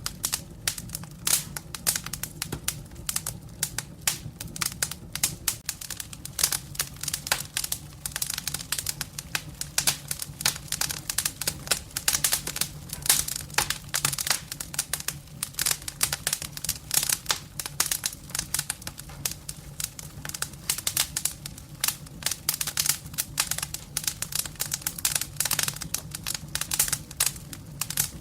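Firewood burning in a fireplace, crackling with a dense, continuous run of sharp pops and snaps over a low steady hum.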